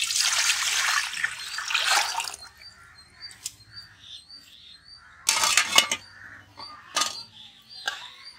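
Water poured from an aluminium pot into an aluminium idli steamer, splashing for about two seconds. About five seconds in, the metal idli plate clatters into the steamer, followed by a couple of lighter clinks, while a small bird chirps repeatedly.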